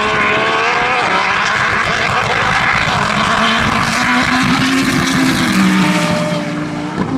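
Nissan GT-R's twin-turbo V6 and an Audi R8 engine running at full throttle in a drag race, loud, with the engine notes climbing early on as the cars pull away and then holding steadier.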